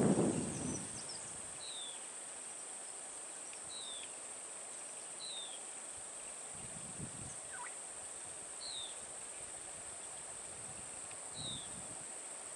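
Steady high insect drone, with a bird repeating a short, falling call every second or two. A louder noise dies away in the first second.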